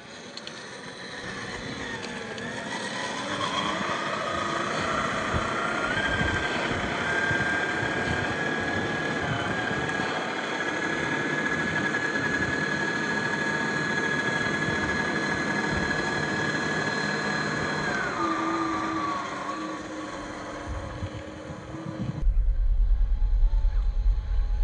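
Traxxas TRX4 RC crawler's brushed 550 electric motor and geartrain whining. The pitch rises over the first several seconds, holds steady, then falls away about eighteen seconds in. Near the end a loud low rumble takes over.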